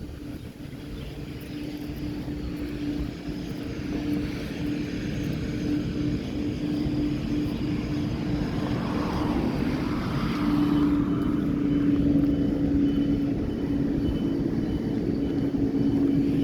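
An engine running with a steady low hum over a rumble, growing gradually louder.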